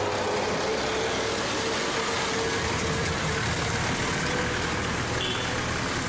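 A vehicle engine idling steadily, with a faint steady tone over an even rumbling noise.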